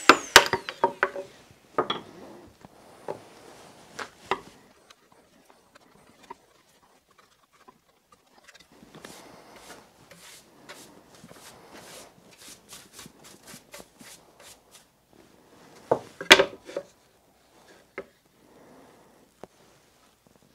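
A wood chisel prying a routed wooden disc out of a chipboard jig, with a few sharp knocks and clatter at the start. Later a hand brush sweeps sawdust off the board in a run of quick strokes, followed by a short cluster of louder knocks.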